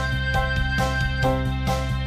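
Background music: a keyboard tune with evenly repeating notes over a steady bass.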